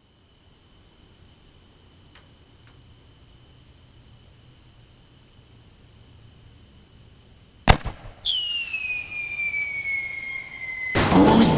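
Steady cricket chirping, then a sharp crack, a firework whistle that falls in pitch for about three seconds, and a loud firework burst near the end.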